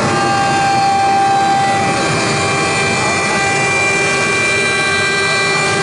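DX 4040 mini CNC router running, a steady high spindle whine over a dense machining hiss that holds constant.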